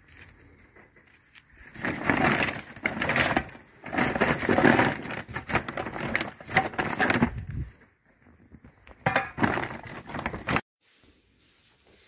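Paper shopping bag full of toys rustling and crinkling as it is handled close up, with the contents shifting inside, in two long spells that cut off suddenly.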